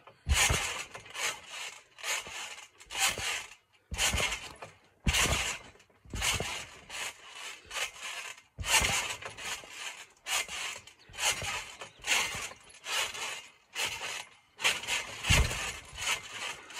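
Irregular rubbing and scraping noises close to the microphone, a short noisy burst every half-second to second, with no steady tone.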